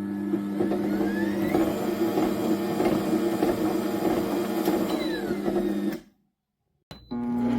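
Small electric appliance motor running with a steady two-note hum and a busy mechanical rattle over it; it cuts off suddenly about six seconds in, and another steady machine hum starts near the end.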